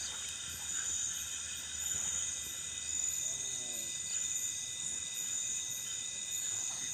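Night insects, crickets, chirring steadily at several high pitches, with a faint pulsing trill above them.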